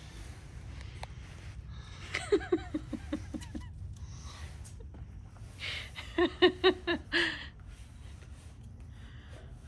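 A person laughing in two bouts, each a run of short pitched 'ha' pulses with breathy edges, the first falling in pitch.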